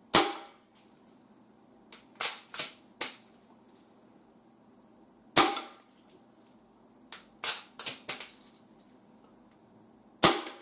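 Artemis CP2 CO2 air rifle in .22 firing three shots about five seconds apart, each a sharp pop. Between the shots come quicker clusters of smaller mechanical clicks.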